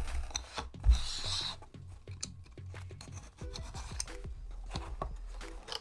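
Utility knife slitting the tape and cardboard of a shipping box, a rasping scrape with a thump about a second in, followed by lighter clicks and rustles of the box being handled.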